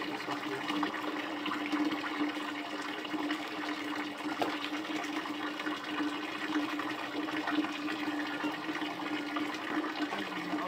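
Water running steadily from an outdoor spout pipe and splashing onto a concrete washing slab.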